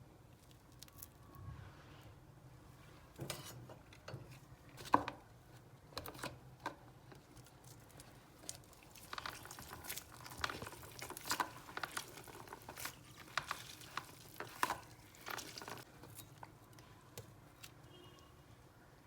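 Kitchen handling sounds: scattered clicks, taps and scrapes of utensils and containers, with one sharper knock about five seconds in and a busier run of taps in the middle.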